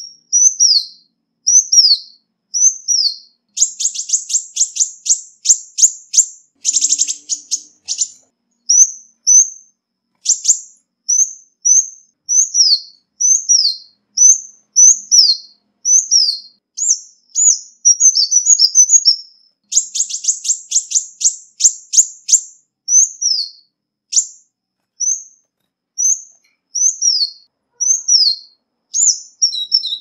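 Ruby-cheeked sunbird calling: a string of short, high, down-slurred notes, broken twice by a rapid trill, about four seconds in and again about twenty seconds in. The recording is clean, with no background noise.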